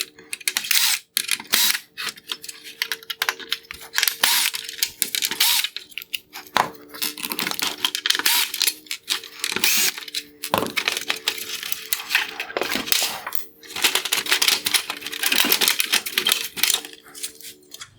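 Phillips screws being worked out of a plastic headlight housing: a dense run of small clicks, ticks and scrapes of the screwdriver and screws against hard plastic, with a faint steady hum underneath.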